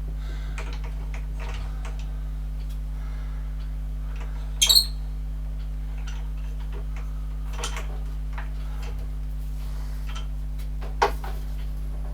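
Metal tools and parts being handled, with scattered small clicks and knocks, one sharp ringing metallic clink about halfway in and a louder knock near the end, over a steady low hum.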